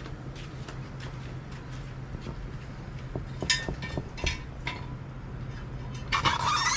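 Light clinks and taps, some briefly ringing, over a steady low hum, with a short hissing burst near the end.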